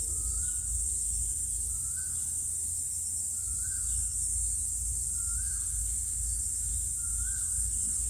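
Steady high chirring of crickets over a low hum, with a faint short tone, rising then falling, repeated about every two seconds.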